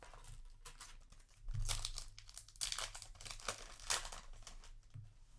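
Foil Yu-Gi-Oh! booster pack wrapper crinkling and tearing as it is opened, a run of crackling rustles that is loudest through the middle.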